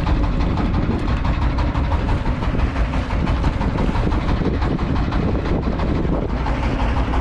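Small fishing boat's engine running steadily, a constant low rumble.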